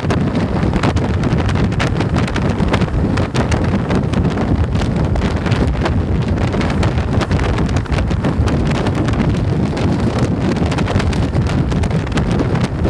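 Heavy, steady wind buffeting the microphone of a camera on a motorcycle moving at road speed, gusting irregularly and covering the engine and tyres beneath it.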